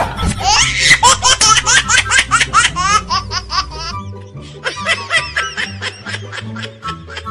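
High-pitched giggling laughter, a fast run of short syllables, over background music with a stepping bass line; the laughing is densest in the first three seconds or so and returns more loosely near the end.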